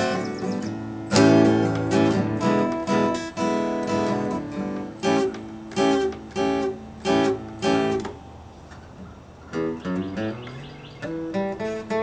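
Flat-top acoustic guitar played solo with a pick: a run of strummed chords about twice a second, then a quieter stretch of single picked notes with a sliding bass note, before the strumming comes back near the end.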